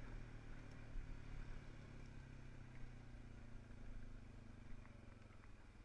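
Dirt bike engine running at low revs, its pitch slowly falling as it eases off, and fading near the end.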